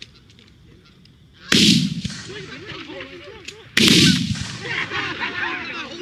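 Two shotgun blasts about two seconds apart, with a flock of Canada geese honking around and after the shots.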